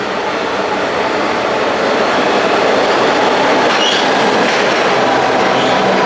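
PATCO High Speed Line train pulling into an underground station, its wheels and running gear rumbling on the rails. The noise grows louder over the first couple of seconds as the train comes in, then holds steady as the cars run past along the platform.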